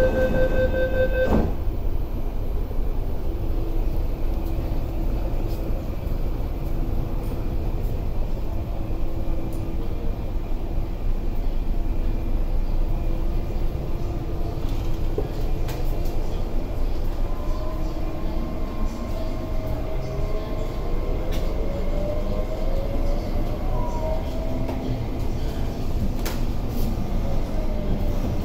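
SP1900 electric train: the door-closing warning tone stops about a second in, with the thud of the sliding doors shutting. Then the car's steady low running rumble, with the traction motors' whine rising in pitch in several tones during the last third as the train accelerates away from the platform.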